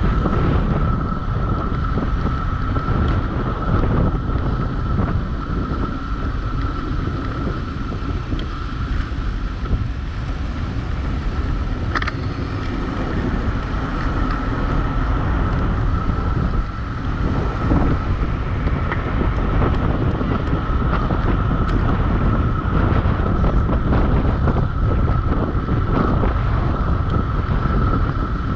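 Wind buffeting the microphone during a fast downhill ride, with a steady high whine above it. A brief sharp click about halfway through.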